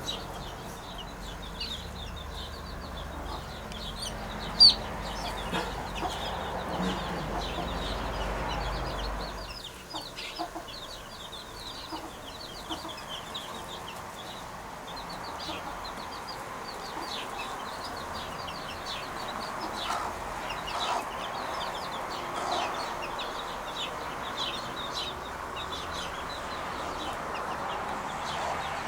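Birds calling in a steady stream of short, high chirps, with a low rumble under the first third that stops about nine and a half seconds in. A single sharp click, the loudest sound, comes about five seconds in.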